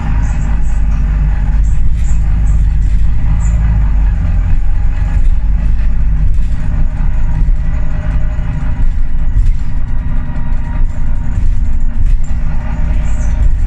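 Volvo B9TL double-decker bus heard from the upper deck while under way: the 9.4-litre six-cylinder diesel makes a loud, steady low rumble. Short clicks and rattles from the body and fittings sound through it.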